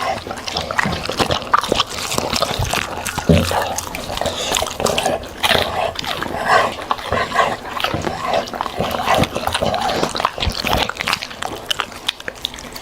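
A dog eating, with a quick, irregular run of chewing clicks and mouth smacks.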